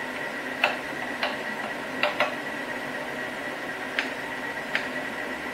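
Knife blade striking a plastic cutting board while olives are sliced into rings: six short sharp taps at uneven intervals, two of them close together, over a steady hum.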